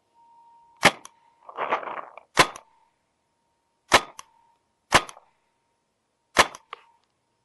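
Paintball marker firing five single shots, spaced about one to one and a half seconds apart, each a sharp pop, with a brief rush of noise between the first two shots.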